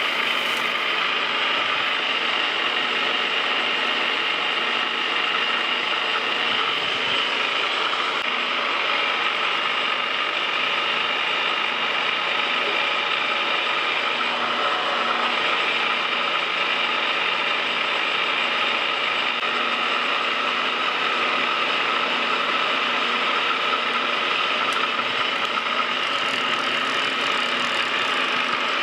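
Metal lathe running at slow speed on a thread-cutting pass along a long steel screw, a steady mechanical running noise of its drive with faint steady whining tones.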